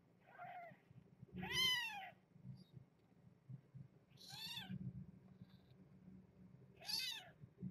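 Newborn kitten, about two and a half days old, crying with high, thin mews: four calls, each rising and then falling in pitch, the first faint and the second the loudest.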